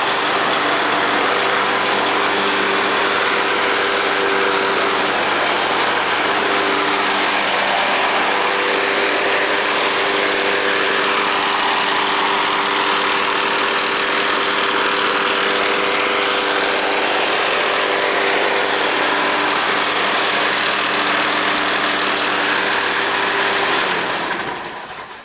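Hayter Harrier 48 lawn mower's petrol engine running at a steady speed, then winding down and stopping near the end.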